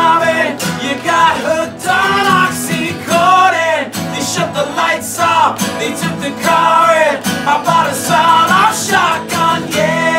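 Live acoustic rock song: two acoustic guitars strummed in a steady rhythm while a male lead singer belts the vocal, with a second male voice singing along.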